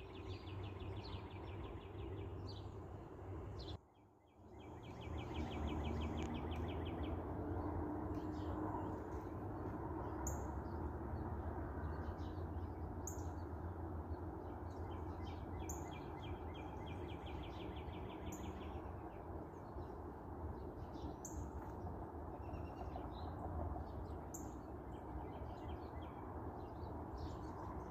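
Backyard songbirds calling: a rapid trill repeating in stretches, and a short, high upward chirp every few seconds, heard faintly over a low steady background rumble.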